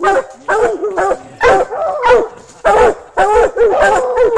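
Coonhounds barking treed, a rapid run of loud barks, about two a second, with some calls overlapping, the sign of a raccoon held up a tree.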